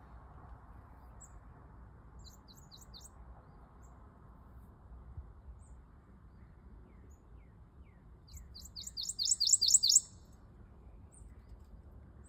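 Prothonotary warbler singing its song of one repeated high note: four faint notes about two seconds in, then about eight seconds in a quick run of about eight notes that grows louder and stops abruptly.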